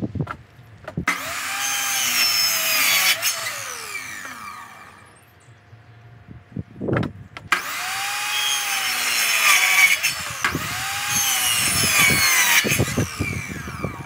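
Electric mitre saw cutting pallet boards, twice: each time the motor whines up, the blade rasps through the wood for a few seconds, and the pitch falls as the blade coasts down. A short knock comes between the two cuts.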